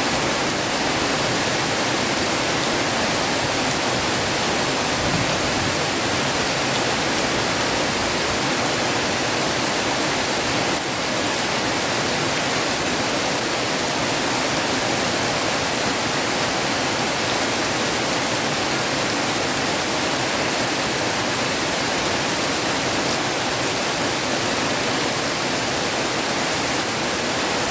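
Heavy rain falling steadily, a constant even hiss with no thunder.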